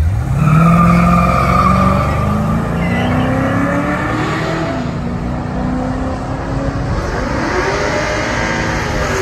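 Two Ford Torino muscle cars launching at full throttle in a drag race. Their engines climb steeply in pitch as they accelerate away, then drop back and climb again as they shift up through the gears, about four seconds and again about eight seconds in.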